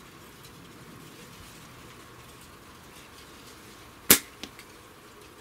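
A flatband slingshot fired with 1/4" steel ammo: one sharp, loud snap of the bands and pouch on release about four seconds in, followed a third of a second later by a much fainter click.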